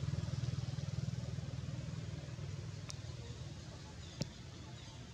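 A vehicle engine's low, pulsing rumble, fading away over the first half as it passes. A couple of sharp clicks follow near the end.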